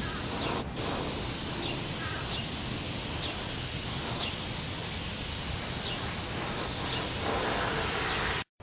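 Steady hiss of paint being sprayed onto a motorcycle fairing, with one short break near the start, stopping abruptly near the end.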